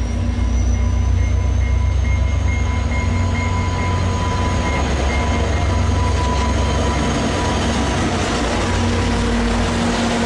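VIA Rail F40PH-2 diesel locomotive running close by: a steady, loud low engine rumble with a faint high whine that rises slightly in pitch and stops about eight seconds in.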